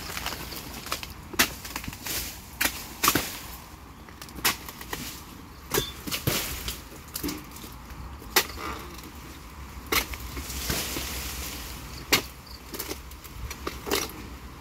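Oil-palm harvesting chisel (dodos) on a long pole jabbed into the frond bases and fruit-bunch stalk of an oil palm: about a dozen sharp chopping knocks at uneven intervals.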